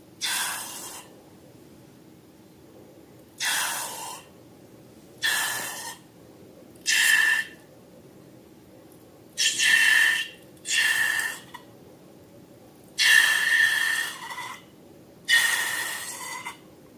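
Air rushing out of a balloon's neck in about eight short squeaky hisses, some with a steady high squeal over the rush of air, with pauses between them.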